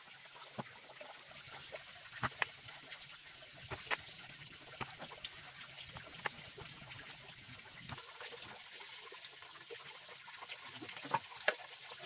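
Peeled bamboo shoots being handled and dropped into a pot of water: scattered light knocks and clicks with some splashing of water, over a steady low background hiss.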